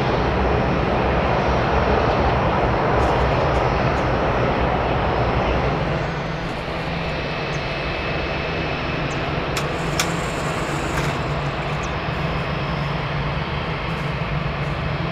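Airliner engines running loud for about the first six seconds, then easing to a steadier, quieter hum with a thin high whine.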